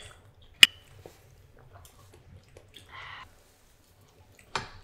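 Knife and fork clinking sharply on a ceramic plate twice, once about half a second in and again near the end, with soft chewing and biting of pancakes between.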